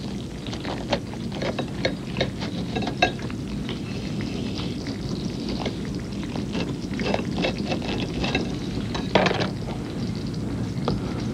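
Bread knife sawing through a toasted BLT sandwich: irregular crunching and crackling of the toast and lettuce over a steady low hum.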